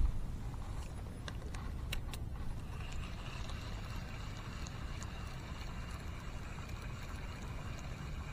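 A few sharp clicks in the first couple of seconds, then a steady whirring from about three seconds in with faint ticks about once a second, over a low wind rumble on the microphone: a spinning reel being engaged and cranked to retrieve a soft frog lure.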